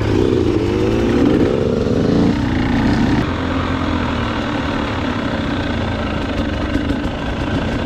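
Dirt bike engine accelerating, its pitch rising over the first two seconds, then running at a steady speed as the bike rides on.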